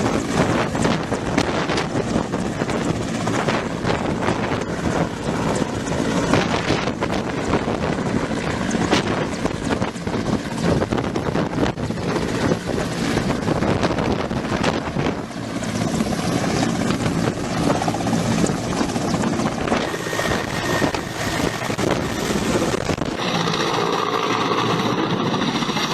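Helicopter running, a loud dense rotor and engine noise with a fast choppy texture; the sound thins out and changes character near the end.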